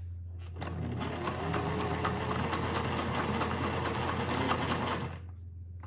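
Singer 403A sewing machine running at speed, sewing a short-length zigzag stitch from a fashion disc, in a fast, even run of needle strokes. It starts about half a second in and stops near the end.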